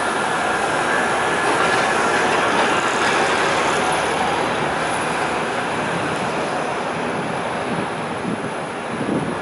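Steady, loud city traffic noise, swelling slightly a couple of seconds in.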